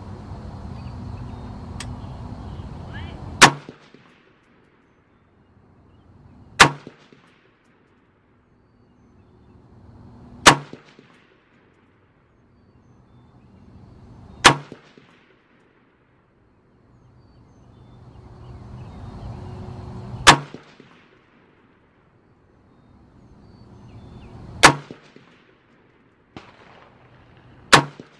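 Seven single shots from a Palmetto State Armory M4-style AR-15 rifle, fired slowly a few seconds apart. Each is a sharp crack with a short ring-out.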